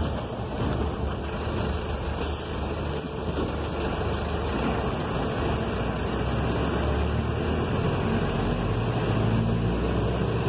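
City bus driving along, heard from inside the cab at the front: a steady low engine rumble under the hiss of the tyres on wet road. The rumble grows somewhat about halfway through, and a thin high whine comes in along with it.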